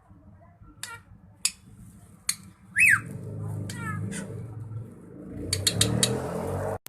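Drongo calling: short sharp notes, then a loud whistle rising and falling about three seconds in, and a quick run of harsh, grating notes near the end that cuts off suddenly.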